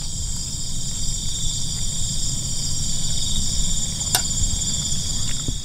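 Steady chorus of insects, several high-pitched buzzing tones held without a break, over a low rumble. A single sharp click about four seconds in.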